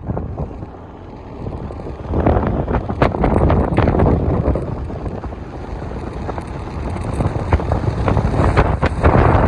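Wind buffeting the microphone in gusts, swelling and easing, loudest near the end.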